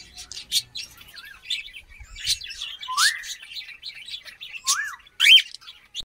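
Cockatiels chirping and whistling: a run of short high chirps with a few rising, sliding whistles, the loudest one near the end.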